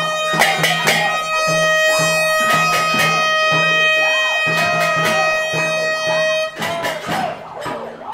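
Protest noisemaking: a long held horn-like tone, joined about a second in by a second, higher held tone, both stopping near the end, over repeated banging and other noisemakers.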